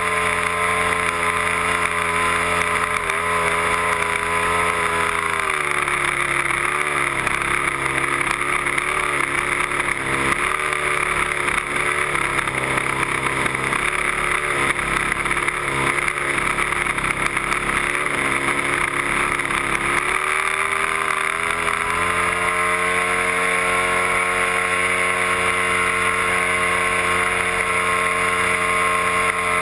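Cub aeroplane's piston engine and propeller droning in flight, with wind rush over the airframe. About six seconds in the engine is throttled back and the drone drops in pitch and runs unevenly, then about twenty seconds in the power comes back up with a rising pitch and settles to a steady drone.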